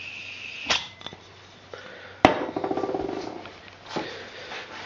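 Butane-propane gas hissing steadily into the gas tank of a Graupner 5000 model steam plant from a refill can, stopping with a click a little under a second in. Then a sharp knock, followed by a brief, fast rattle, and a softer knock near the end.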